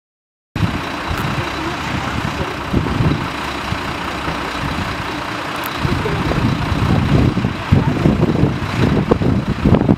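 Puma helicopter's turbines and rotor running as it hovers low, a steady rushing noise with an uneven low rumble. It starts abruptly about half a second in and grows louder and choppier in the second half.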